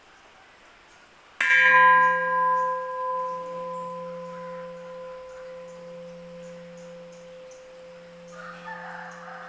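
Bell-metal (vellottu) uruli struck once about a second and a half in, then ringing on with a clear, steady tone that slowly fades, over a low hum that pulses slowly.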